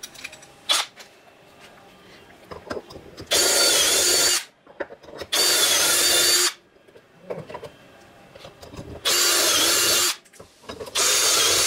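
Cordless drill boring dowel holes into a wooden board through a dowelling jig: four short bursts of about a second each, in two pairs, with the motor's steady whine in each. Quiet handling clatter and a click fall between the bursts.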